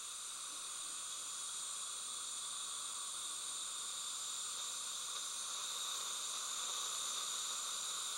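Steady, even hiss with no other sound.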